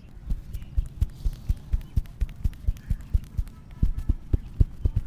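A masseur's hands striking the body in fast percussion massage, about four dull slaps a second.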